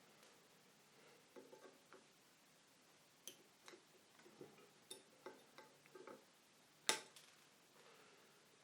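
Cutters snipping off the excess wire leads of components soldered to a circuit board: a series of sharp, irregular clicks, the loudest about seven seconds in.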